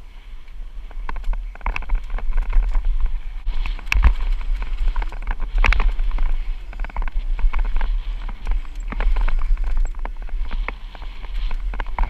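Downhill mountain bike ridden fast over rough trail: the bike rattles and knocks over rocks and bumps, with wind buffeting the microphone in a steady low rumble. Some knocks are sharper and louder, about 4 and 6 seconds in.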